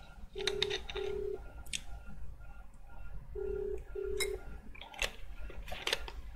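Australian telephone ringback tone heard over the line: a double ring of a low steady tone, a pair about every three seconds (three pairs), which signals that the called phone is ringing unanswered. Scattered light clicks run alongside it.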